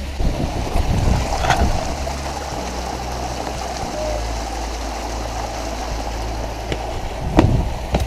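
Steady rushing, rumbling noise, heaviest in the low end, with two sharp knocks: one about a second and a half in and a louder one near the end.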